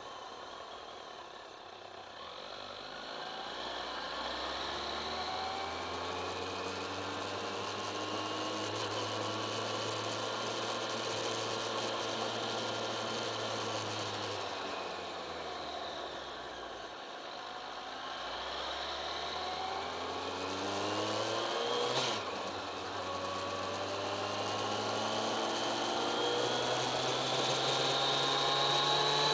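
Kawasaki ZX-10R inline-four motorcycle engine pulling away at low revs and accelerating, its pitch rising, easing off around the middle, then climbing again. A single sharp click sounds about three quarters of the way through.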